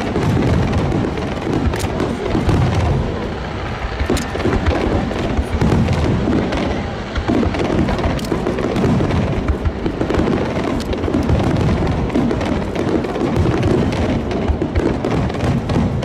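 Aerial fireworks bursting in quick succession: a dense, continuous run of deep booms with a few sharp cracks, with music playing alongside.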